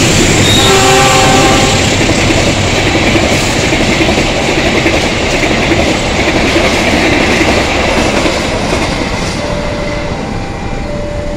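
KA Argo Parahyangan passenger train running through close by: the carriages' wheels roll and clatter over the rail joints. There is a short horn blast about a second in, and the rumble slowly fades as the train draws away. Faint short two-note tones repeat near the end.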